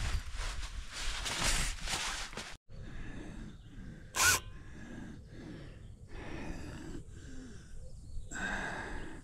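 Rustling handling noise, then after a break a person's heavy breathing in repeated soft gasps about once a second, with one sharp knock about four seconds in.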